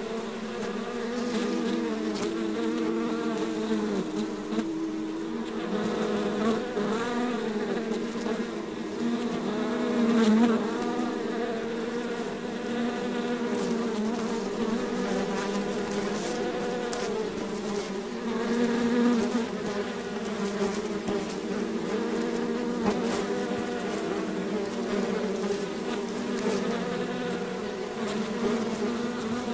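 A swarm of honeybees buzzing in a steady drone of many overlapping wingbeats. The drone wavers in pitch and swells louder a couple of times, about a third and two-thirds of the way through.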